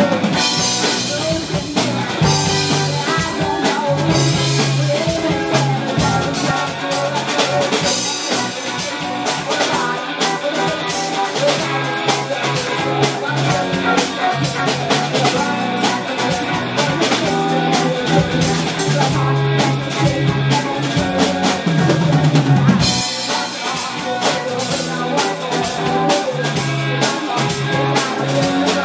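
Live rock band playing: drum kit, electric guitar and bass guitar through amps.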